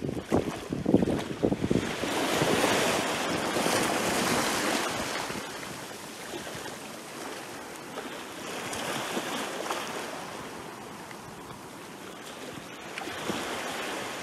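Small sea waves breaking and washing up on the shore at close range, with sharp splashes in the first two seconds. The wash then surges and fades in slow swells, the biggest a few seconds in, with smaller ones near the middle and the end.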